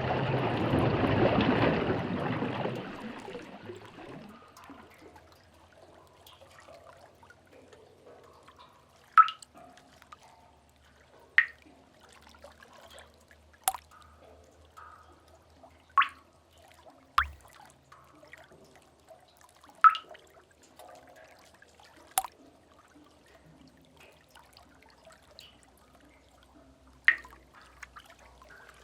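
Sea cave ambience: a wash of seawater surges and fades away over the first few seconds. After that, single water drips fall about every two seconds, each a short, sharp plink, about eight in all, over a faint low rumble.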